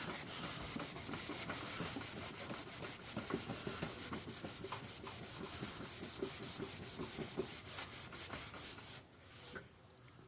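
A sock damp with bug spray being scrubbed in quick back-and-forth strokes over a hazy plastic headlight lens. The scrubbing stops about nine seconds in.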